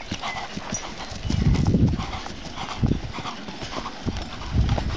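Hoofbeats of a paint horse jogging under a rider on dirt and grass: a steady run of soft thuds. A low rumble swells briefly about a second and a half in and again near the end.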